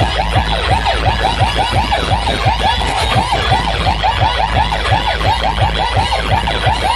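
A rapid wailing siren effect, about five sweeps a second, blasted through a large DJ loudspeaker sound system over a steady heavy bass beat.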